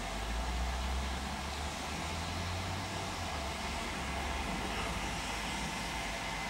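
Standing steam locomotive giving off a steady hiss of steam, with a low rumble under it that fades out about four and a half seconds in.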